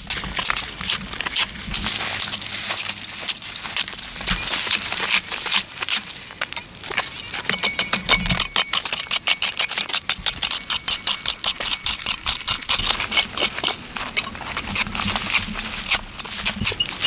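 A pickaxe chopping into dry, rocky soil, with repeated strikes, loose earth and stones crumbling and rattling, and scraping. Through the middle of this a fast, even pulsing of about five beats a second runs for several seconds.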